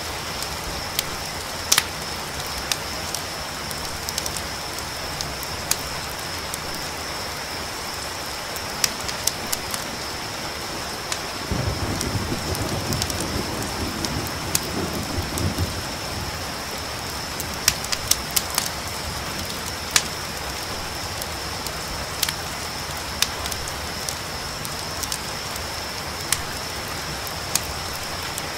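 Layered night ambience of rain hissing, a campfire crackling with scattered sharp pops, and a steady high cricket trill. About twelve seconds in, a low rumble of distant thunder lasts a few seconds.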